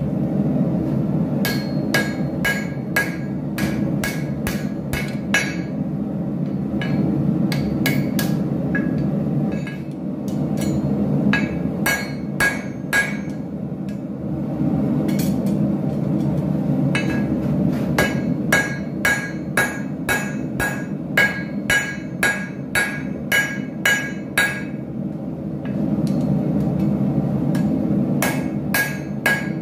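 Hand hammer striking red-hot angle iron on an anvil in several runs of quick blows with pauses between them, each blow ringing bright and metallic. A steady low rushing noise runs underneath.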